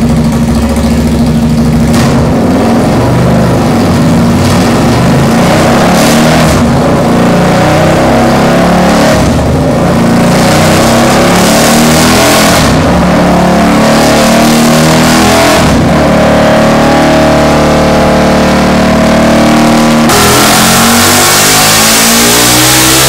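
Buell 1125R's 1125 cc V-twin running loud through the stock downpipe alone, with no muffler. It runs with several short throttle blips, then revs up in a steady climb about twenty seconds in.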